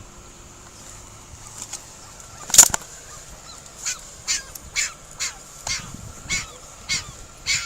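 A small puppy trapped in a hot parked car, yelping in a string of short high cries about two a second, the sign of a dog in distress from the heat. A single sharp, loud sound comes about two and a half seconds in, before the cries.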